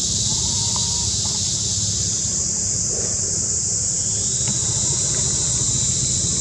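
Steady, high-pitched drone of a forest insect chorus over a low rumble, with a few faint clicks.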